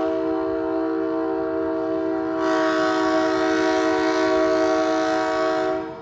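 Diesel locomotive's multi-chime air horn sounding one long chord at a grade crossing. The horn gets fuller and louder about two and a half seconds in, then cuts off near the end.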